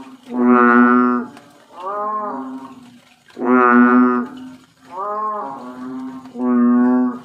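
Banded bullfrog calling: a series of cow-like moos, each about a second long. Three loud calls come about three seconds apart, and each is followed by a softer, shorter call.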